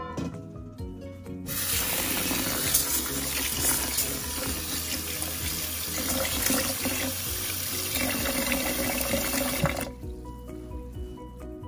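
Tap water running into a rice cooker's inner pot while a hand swishes glutinous rice to wash it. The stream starts about a second and a half in and stops near ten seconds.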